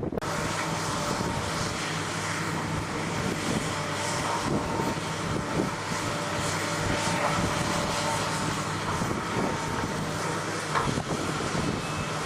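Diesel engine of heavy earthmoving equipment running steadily, with a steady whine over the engine note.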